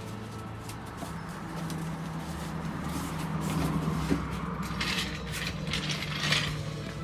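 A steady low mechanical hum, like an engine or motor running, with a few metal clinks and scrapes about five to six and a half seconds in as a hydraulic jack is handled.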